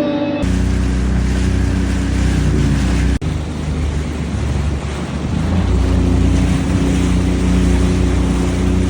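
Seabreacher watercraft's engine running under heavy water rush and wind on the microphone. The engine tone fades behind the water noise for a couple of seconds mid-way, then comes back strong.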